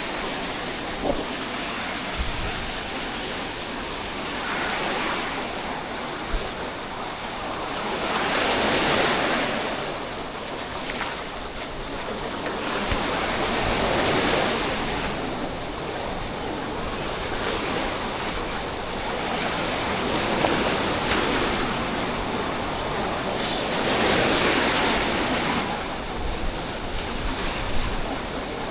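Sea waves breaking and washing up the beach, each one swelling and fading away every four to six seconds, with wind buffeting the microphone.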